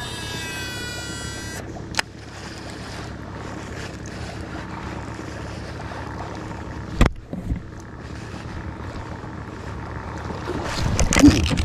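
Baitcasting reel's spool whining for about a second and a half as a mini popper lure is cast. Then a steady hiss follows, with a sharp knock about seven seconds in and louder, busier knocking near the end.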